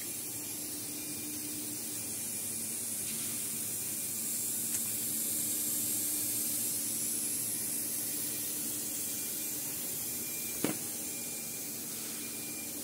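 Steady high hiss with a low electrical hum from the machinery around a CNC router. One sharp click about ten and a half seconds in.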